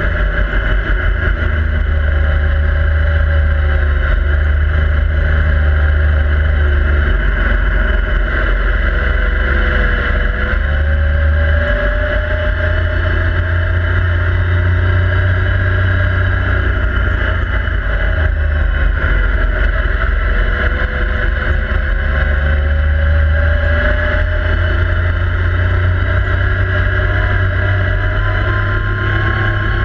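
Yamaha YXZ1000R SS side-by-side's three-cylinder engine running hard on a dirt trail, heard from inside the cab, its revs falling and rising several times. A heavy low rumble runs underneath.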